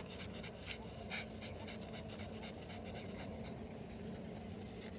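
A dog panting in quick, even breaths, which fade out after about three seconds.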